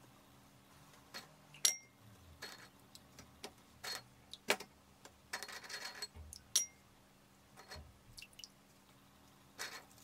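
Light taps and clicks of dishes and biscuits being handled on a tray, with two short ringing clinks of dishware and a brief rustle about midway.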